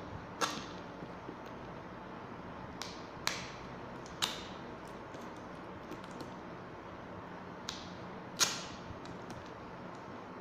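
Sharp clicks and crackles from hands opening and handling a new phone's cardboard box and its wrapping, about six in all and spread out, the loudest near the end, over a steady low hiss.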